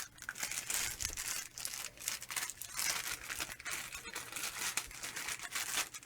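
Plastic accessory bag of PC case screws crinkling and rustling as it is handled and opened, with irregular crackles throughout.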